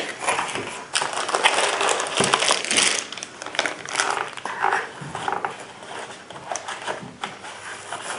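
Rifle-scope box and its packaging being opened and handled by hand: irregular crinkling and rustling with small clicks and knocks.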